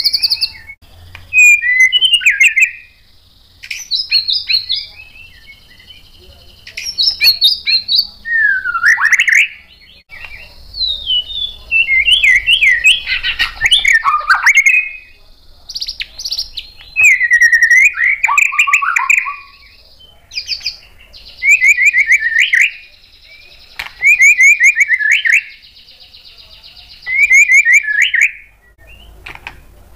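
White-rumped shama (murai batu) singing: about nine loud phrases of fast trills and rapidly repeated notes, some sliding down in pitch, each a second or more long with short pauses between them.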